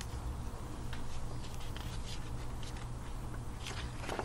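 Pages of a hardcover picture book being handled and turned: soft paper rustles and taps, more of them near the end, over a steady low hum.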